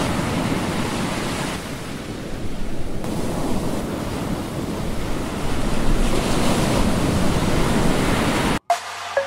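Surf washing ashore with wind buffeting the microphone, easing off and then swelling again. It cuts off suddenly near the end, and electronic music begins.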